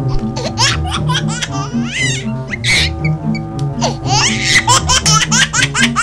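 Background music with a steady beat, overlaid with rapid, repeated high-pitched laughter.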